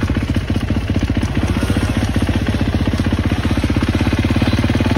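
Off-road vehicle engine running at a steady speed, a fast, even pulse of firing strokes with no revving.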